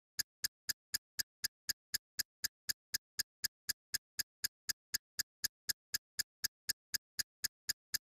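A ticking sound effect: sharp, identical ticks at an even pace of about four a second, with dead silence between them.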